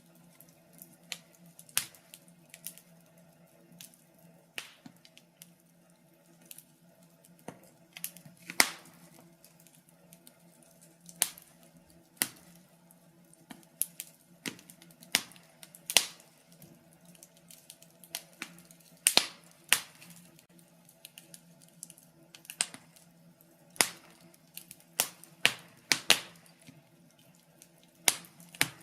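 Wood fire crackling in a fireplace: irregular sharp pops and snaps, a few each second and some much louder, over a faint steady low hum.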